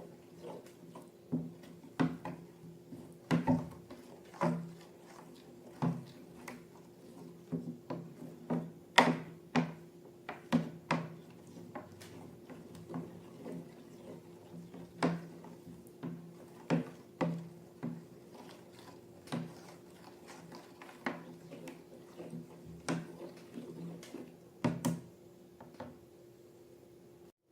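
Irregular clicks, taps and light knocks from hands handling slime-making materials and balloons, about one or two a second and uneven in loudness, over a steady low hum.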